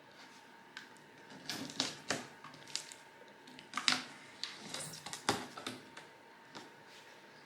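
Funko POP! box packaging, cardboard and plastic, being handled and opened: a string of irregular crinkles, scrapes and clicks, busiest from about a second and a half in until near the end.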